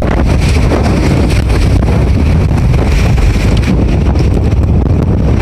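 Strong storm wind buffeting the phone's microphone: a loud, steady rumble with no let-up.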